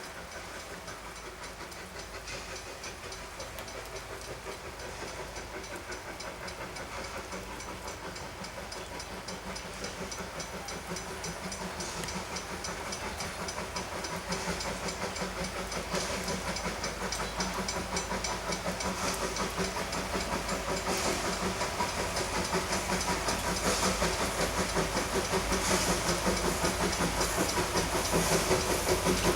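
Narrow-gauge NA class 2-6-2 tank steam locomotive working, its exhaust chuffing in a fast, even beat over a steady hiss of steam. It grows steadily louder as the train approaches.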